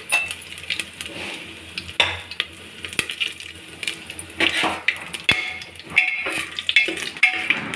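Whole spices (cumin seeds, bay leaf, dried red chillies and whole garam masala) sizzling and crackling in hot oil in an aluminium pressure cooker, with many sharp pops. A spoon stirs them and knocks against the pot now and then. This is the tempering stage, where the whole spices crackle in the hot oil.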